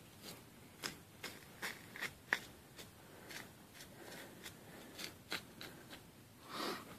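A small Brent Harp custom hunting knife cutting into a deer carcass during skinning: a string of irregular, crisp snicks and small crunches, with one longer, softer scrape near the end.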